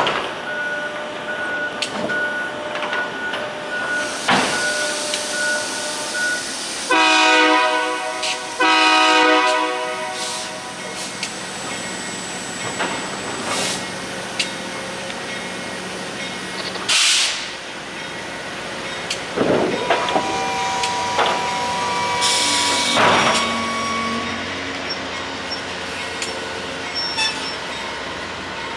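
Nathan K3LA three-chime air horn on a freight locomotive sounding two long blasts about a quarter of the way in, the second a little shorter. A slow-moving train rumbles underneath, with several short hissing bursts.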